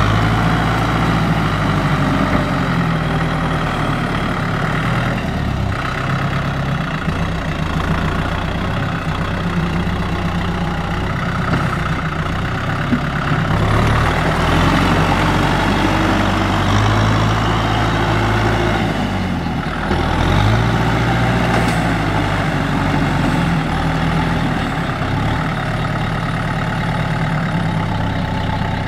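Tractor engine running hard under load in mud, its pitch dropping and climbing again several times as throttle and load change.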